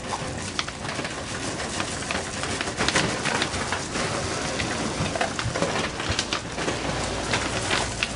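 Dry dog kibble pouring from a bag into a plastic storage bin: a dense, steady rattle of many small clicks.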